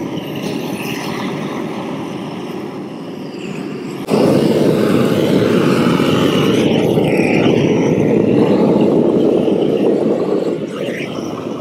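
Hose-fed propane torch flame running steadily as it heats the overlap seam of peel-and-stick roll roofing, softening it for better adhesion. The flame noise gets suddenly louder about four seconds in and eases off near the end.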